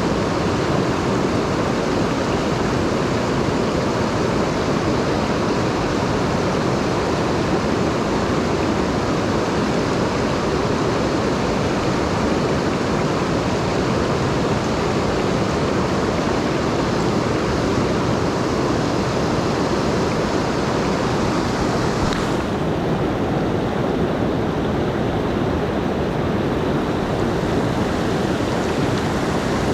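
A swollen mountain stream rushing steadily, running high after rain. About two-thirds of the way through, the sound suddenly turns muffled.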